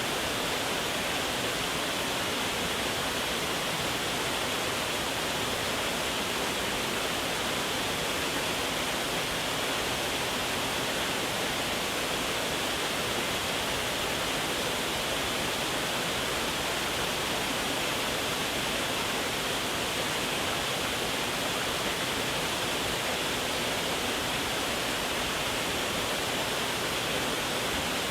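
Waterfall: a steady, unbroken rush of falling water, brightest in its hiss, with no change in level.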